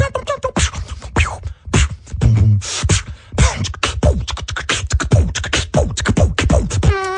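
Human beatboxing: a fast run of mouth-made kick-drum thumps, snare and hi-hat clicks and falling zap sounds. A held hummed note starts near the end.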